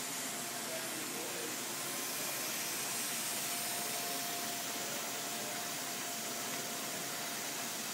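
Heidelberg SORMZ two-colour offset press running, a steady even hiss and whir of its motor, rollers and air pump, with a faint thin tone through the middle.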